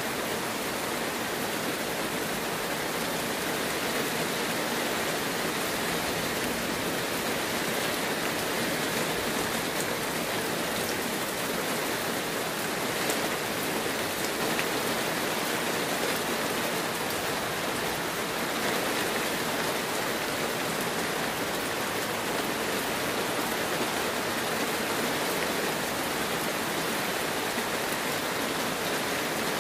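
Heavy rain falling steadily: an even hiss with a few sharper drop hits.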